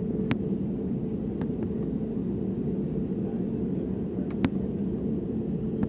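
Steady low cabin rumble of an Air Arabia Airbus A320-family jet taxiing on the ground with its engines running, heard from inside the passenger cabin. Two sharp clicks come about a third of a second in and again about four and a half seconds in.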